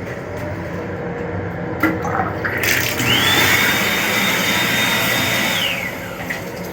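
Toilet in an M7 commuter railcar restroom flushing: a click, then a loud rushing with a steady high whine that falls in pitch and fades near the end, over the steady running noise of the train.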